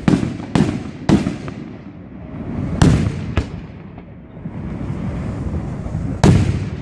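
Aerial firework shells bursting overhead: six sharp bangs, each followed by an echoing rumble. Three come about half a second apart at the start, two close together around the middle and a loud one near the end.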